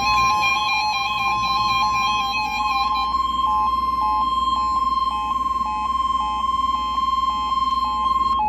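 Weather-radio emergency alert attention tone: a steady, loud tone near 1 kHz, the NOAA Weather Radio warning alarm, held throughout. A second, lower tone steps beneath it for the first three seconds, then the sound drops briefly to a lower pitch about twice a second.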